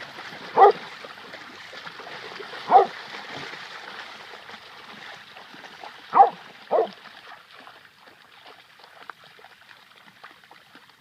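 A dog barking four times, single barks then a quick pair near the middle, over a steady background rush.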